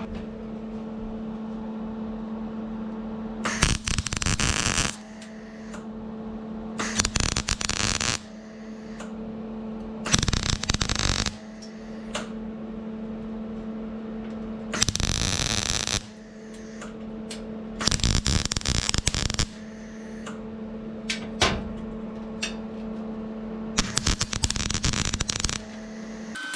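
Welder on thin 24-gauge sheet steel: about six short bursts of crackling arc, each around a second long, laid as stitch welds along a butt joint. A steady electrical hum from the welder runs between them.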